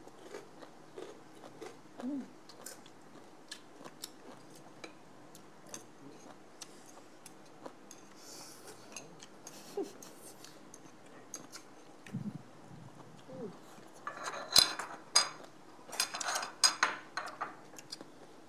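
Chopsticks and utensils clicking against plates and dishes during a meal, with small eating sounds. About fourteen seconds in comes a louder run of clattering as dishes and utensils are handled.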